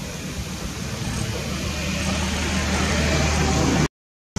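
Steady outdoor rumble and hiss, slowly growing louder, broken off near the end by about half a second of dead silence at a cut.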